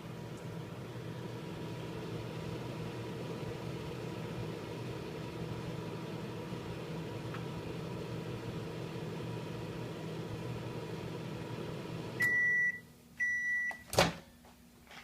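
Microwave oven running with a steady hum as it heats. It shuts off about twelve seconds in and beeps twice to signal the end of the cycle, followed by a sharp click.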